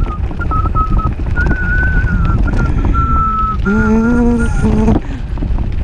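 Wind buffeting the action camera's microphone while riding, with a high, thin whistle-like tone that wavers and steps in pitch for the first few seconds, then a short voiced call about four seconds in.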